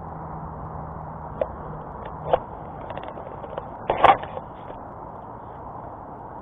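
A camera being handled and set down on a gravel and stone bank: a few separate knocks, a run of small clicks, then the loudest clatter about four seconds in as it comes to rest on the stones, over steady background noise.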